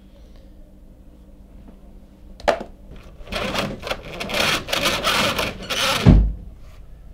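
Window roller shutter hauled up by the strap of its wall-mounted winder. There is a single click about two and a half seconds in, then about three seconds of rasping rattle, ending in a low thump about six seconds in.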